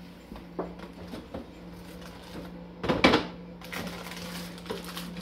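Food containers and packages being handled inside an open refrigerator: scattered light clicks and knocks of plastic, with one louder knock about three seconds in, over a steady low hum.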